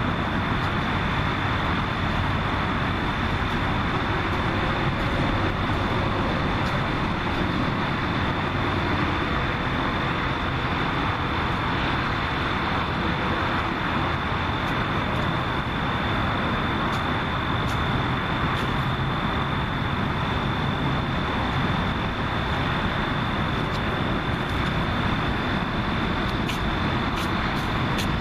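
Steady, even outdoor background noise with a thin, high steady tone running through it, and a few faint clicks near the end.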